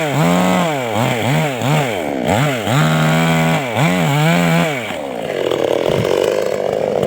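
Two-stroke chainsaw engine revving up and down again and again, the pitch rising and falling in quick swells. For the last two seconds it runs at a lower, rougher pitch.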